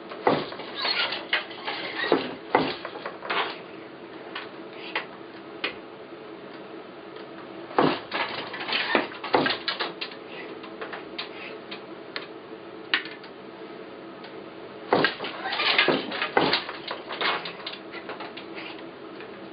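Wooden hand loom being worked while weaving a wool flatweave: clattering wooden knocks from the shuttle, beater and loom frame, in three bursts with quieter pauses between.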